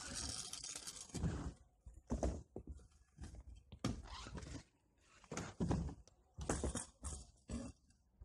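Freestyle kick scooter riding on rough asphalt close by: a run of short rolls of the wheels with knocks and scrapes, about nine in all, some separated by quiet gaps.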